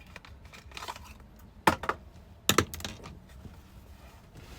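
Small clicks and knocks of a blower motor's run capacitor and its wire terminals being handled during a capacitor swap, with two sharper clacks close together in the middle.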